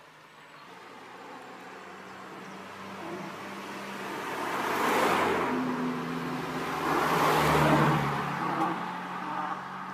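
Two cars drive past one after the other, each swelling up and fading away, about five seconds in and again about two and a half seconds later. The second is a Honda Civic Type R with its turbocharged four-cylinder engine.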